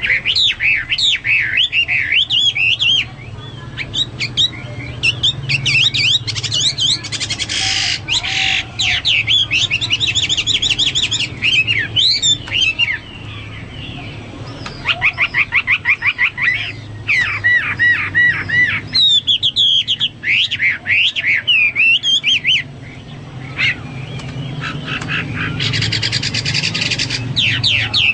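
Chinese hwamei (melodious laughingthrush) singing a long, varied song of loud whistled phrases, rapid repeated trills and harsh notes, with brief pauses between phrases.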